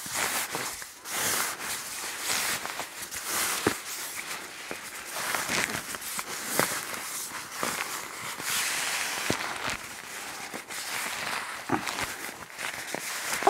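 Inflated sleeping pad and the nylon fabric of an Amok Draumr 5.0 XL hammock rustling and scraping against each other as the pad is pushed into the hammock's pad sleeve, with irregular crinkles and small knocks throughout.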